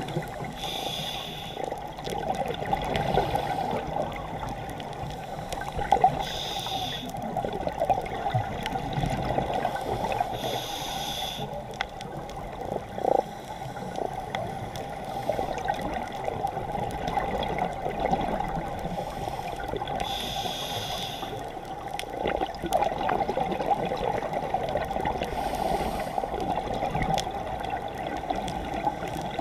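Scuba diver breathing through a regulator underwater: a short hiss every few seconds, with bubbling of exhaled air in between.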